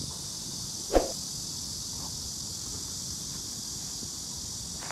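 Steady, high-pitched insect buzzing outdoors, with a single short, sharp sound about a second in.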